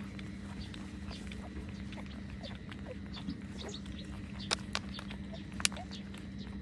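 Newborn puppies nursing: small, high squeaks and suckling clicks over a steady low hum, with three sharper clicks in the second half.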